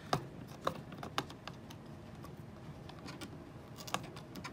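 Fingernail picking at clear packing tape stuck on a hard plastic toy fridge: a few scattered small clicks and taps.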